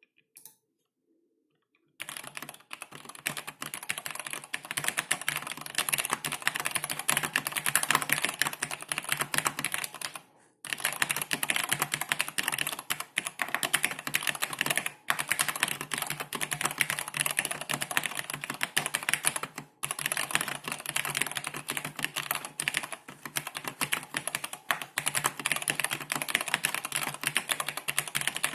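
Fast, continuous typing on a Cherry G80-1501HAD mechanical keyboard with vintage Cherry MX Black linear switches and lubed, clipped stabilizers: a dense run of key clacks starting about two seconds in, with a few brief pauses.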